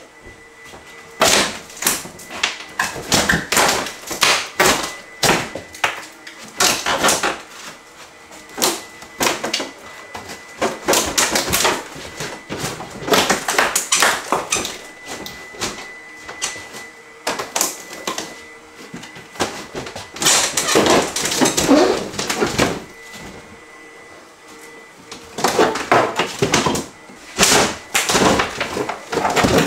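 Wooden kitchen cabinet parts being wrenched, cracked and pulled off the wall by hand during demolition: irregular bursts of knocks, cracks and thuds, with short quieter pauses.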